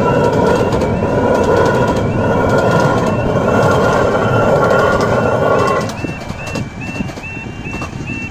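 Miniature 15-inch-gauge railway carriages rolling over a level crossing, the wheels on the rails making a steady noise with a ringing squeal. The noise falls away sharply about six seconds in as the last carriage clears. The crossing's warning alarm sounds through it, a repeating warbling tone about twice a second, and is heard clearly once the train has gone.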